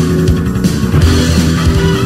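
Loud rock music with guitar and a heavy low end, playing steadily.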